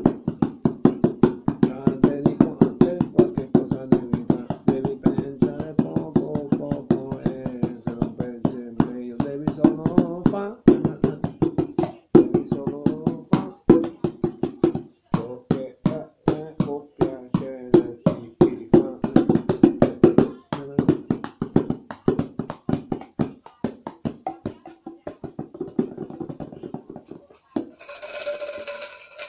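Rapid rhythmic strikes on small hand percussion, several a second, with a low voice singing along. About 27 seconds in, a tambourine starts jingling.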